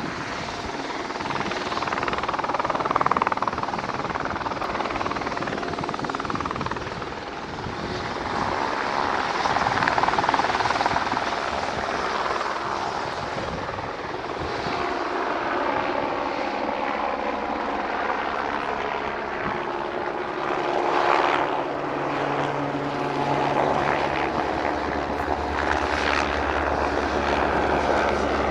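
Helicopter rotor and turbine noise, swelling and fading as it flies around. A steady low hum comes up near the end.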